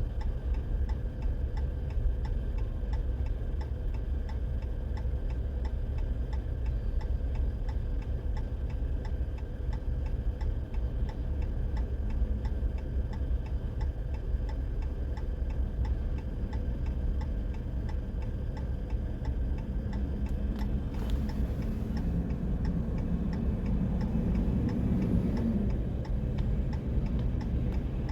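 A car's hazard flasher ticking steadily over the low, continuous rumble of a slow freight train rolling past.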